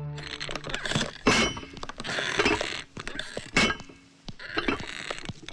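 Irregular metallic clinking and clattering, broken by several sharp knocks.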